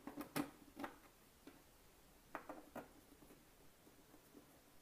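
A few faint scattered clicks and taps of a small bolt being fitted through the corner hole of an acrylic window panel on a 3D printer's frame.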